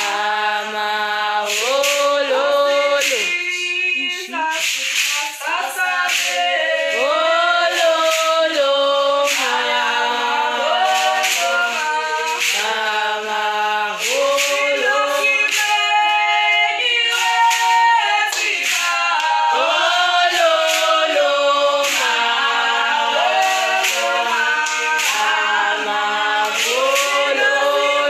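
A group of women singing a traditional song together in harmony, unaccompanied, with sharp percussive beats recurring about once a second.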